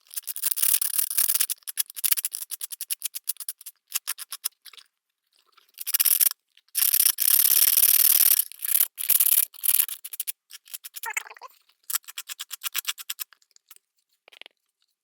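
Sandpaper rubbed in quick back-and-forth strokes against the broken edge of a hard plastic Ringke Slim phone case, grinding it smooth. The strokes come in runs with short pauses, and about halfway through they merge into one unbroken scrape for a second or so.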